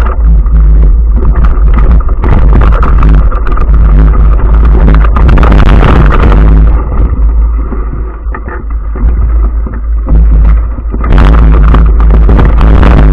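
Off-road vehicle engine running during a ride, loud, with a heavy low rumble throughout. It eases off for a few seconds past the middle, then comes back up to full level about eleven seconds in.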